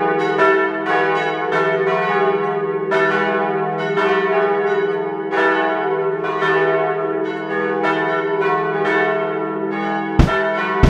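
Church tower bells swinging and ringing, several bells striking in turn so their tones overlap and ring on under each new strike. Two sharp thumps come near the end.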